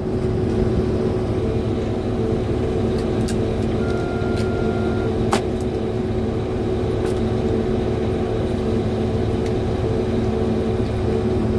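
Steady drone of a vehicle engine running at constant speed. A few sharp clicks sound over it, and a short, steady high beep comes about four seconds in.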